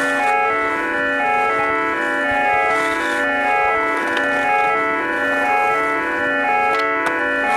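Music led by sustained organ chords that shift from one held chord to the next, with a few faint clicks.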